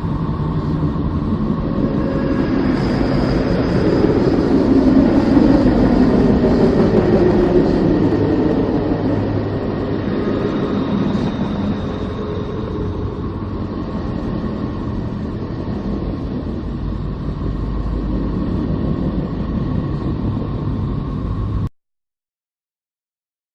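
A deep, rumbling space-sound drone, a planet's recorded emissions turned into audio. It is a dense roar with a few faint steady hums; it swells over the first several seconds, eases, and cuts off suddenly about 22 seconds in.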